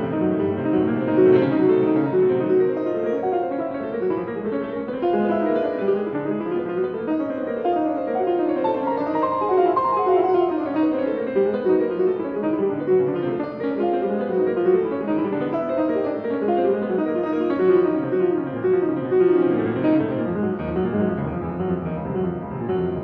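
Piano music with a steady stream of quick notes, including runs that climb and fall.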